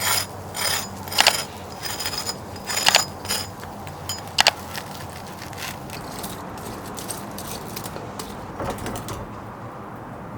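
Metal kitchen utensils clinking against metal: about eight sharp clinks with a brief ringing tone in the first four and a half seconds, then softer scraping and handling.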